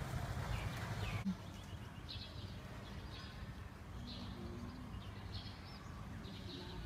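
A small bird chirping repeatedly, short high calls about once a second, over faint outdoor background noise.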